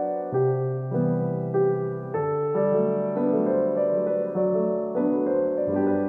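Background music of held pitched notes over a low bass line that changes about once a second.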